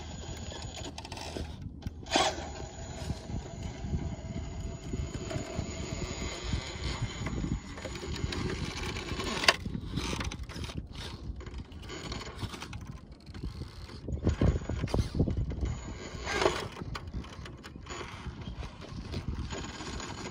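Radio-controlled rock crawler's geared drivetrain working as it crawls over rock, its tyres scrabbling, with a few sharp knocks of the truck against the rock.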